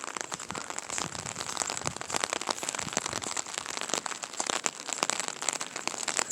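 Steady rain pattering on an umbrella: a dense, irregular patter of sharp drop hits.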